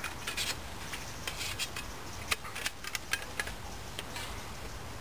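An irregular string of light metallic clicks and taps as the thin perforated metal panels of a Trangia Triangle windshield are slotted and hooked together by hand.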